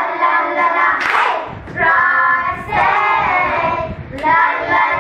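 A group of children singing a pop song together in unison, unaccompanied.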